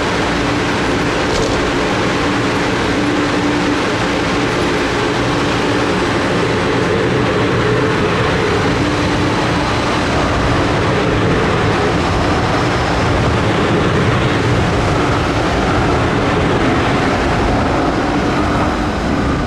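Edmonton LRT light-rail train moving along an underground station platform: a loud, steady rumble of wheels on rail with a low electric hum, echoing in the enclosed station.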